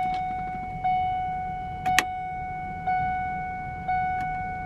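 A 2003 Ford F-150's dashboard warning chime dinging about once a second, each ding fading before the next. A sharp click sounds about two seconds in, among the chimes.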